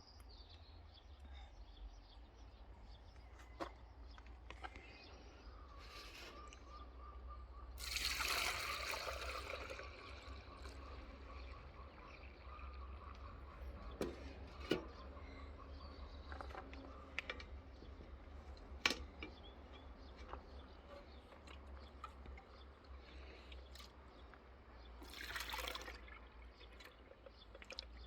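Water trickling and pouring, louder for about two seconds some eight seconds in and again briefly near the end, with scattered light knocks and clicks over a steady low hum.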